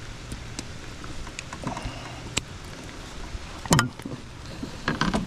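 Clicks and knocks of a metal fish lip-grip being clamped onto a snakehead's jaw and handled in a kayak, over steady rain. The loudest is a sharp click with a brief falling squeak a little past halfway, followed by a few quicker clicks near the end.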